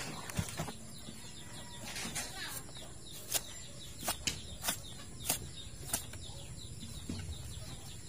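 Large kitchen knife working into a goat carcass: a run of sharp clicks and ticks, bunched in the middle of the stretch, with faint bird chirps behind.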